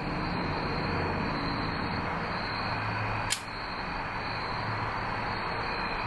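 Steady background hiss with a faint, high, steady tone running through it, and one sharp click about three seconds in.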